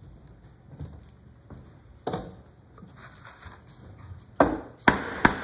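Small bar clamps being worked loose from a wooden press block: faint clicks, a single knock about two seconds in, then three sharp wooden knocks in quick succession near the end as the block is lifted and handled on the bench.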